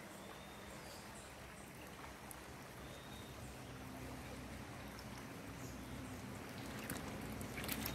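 Shallow river flowing gently over a gravel bed: a faint, steady rush of water, with a faint low hum joining about three seconds in.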